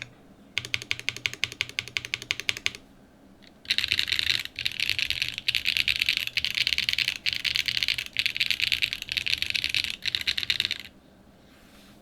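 Typing on a top-mounted Cloudline mechanical keyboard with a polypropylene plate, factory-lubed SWK Yang switches and JTK keycaps. First comes a run of distinct keystrokes for about two seconds. After a short pause, a dense, fast clatter of keystrokes starts about four seconds in, broken by brief gaps about once a second, and stops about a second before the end.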